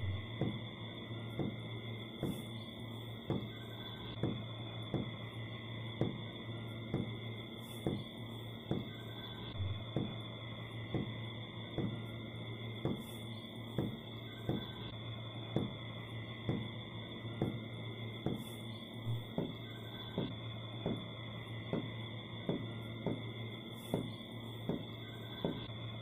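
Ambient soundtrack drone: two steady high ringing tones over a low hum, with a soft, regular tick about twice a second.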